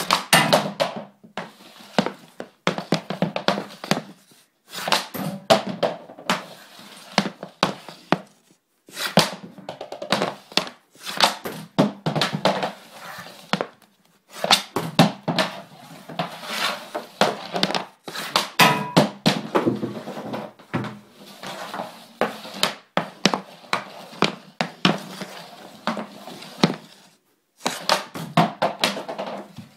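TPS R10 hockey stick working on a hardwood floor: rapid taps and knocks of the blade on the floor and the ball or puck, coming in runs of a few seconds with short pauses between them.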